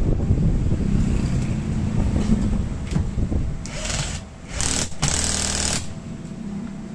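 Cordless impact wrench run in three short bursts, the last and longest with an even rattle, hammering on the bolt at the bottom of a Yamaha Aerox front fork leg. Before it, a low rumble.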